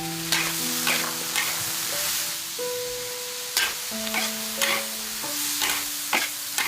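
Food sizzling in a frying pan, with irregular sharp clicks and scrapes, over background music with slow, held notes.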